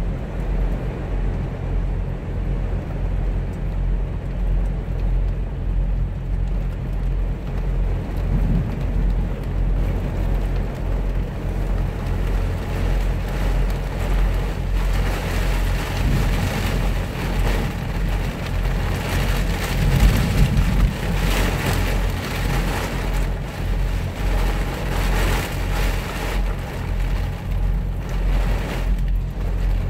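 Rain falling on the cab and windows of a Kenworth semi truck over the steady low hum of the truck's idling engine. The rain grows heavier about halfway through, and a low rumble of thunder swells above it about twenty seconds in.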